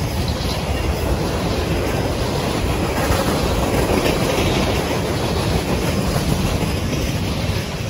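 Freight cars (tank cars, covered hoppers and gondolas) rolling past close by at speed: a steady rumble of steel wheels on the rails.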